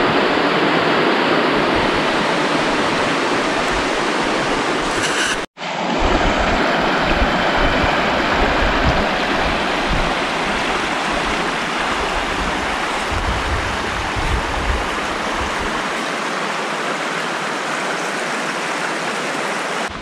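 A fast, shallow mountain stream rushing steadily over rocks and gravel riffles. The sound drops out for an instant about five and a half seconds in, and a low rumble comes and goes in the middle.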